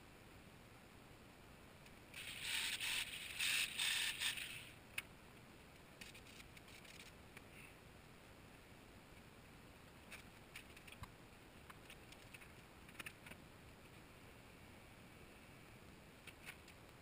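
A few seconds of choppy scraping and rustling, loudest early on, then a single click. After that come scattered light clicks and taps as gear and workpieces are handled in the workshop.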